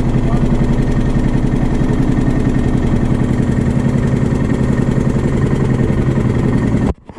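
Small boat's engine running steadily with a fast, even pulse, cutting off abruptly near the end.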